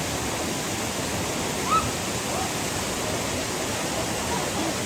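Waterfall rushing steadily. About two seconds in comes a brief, rising high chirp.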